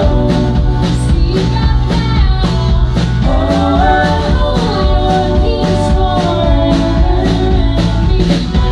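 Live band performance: several women's voices singing together in harmony over strummed acoustic and electric guitars, with a drum kit keeping a steady beat.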